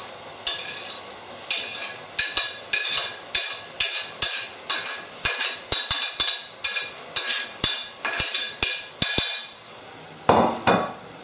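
Repeated sharp clinks with a brief ring, about two or three a second, of a utensil knocking against a plate as chopped spring onion is emptied into the frying pan. Near the end comes a louder burst of the pan sizzling as it is stirred.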